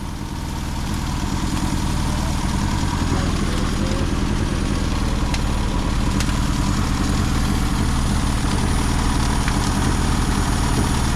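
Car engine running steadily under sustained throttle, its sound dipping briefly at the start and climbing back over about two seconds before holding steady.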